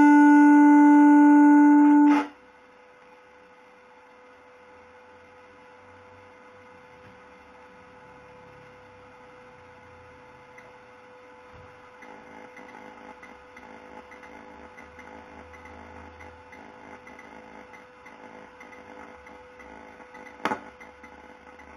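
Electric guitar holds a sustained note for about two seconds, then cuts off abruptly. After that only faint hiss and a steady hum remain, growing slightly louder about halfway through, with a single click near the end.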